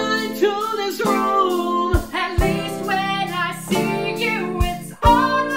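A man singing a line of a duet, then a woman singing the next line, over a strummed guitar accompaniment.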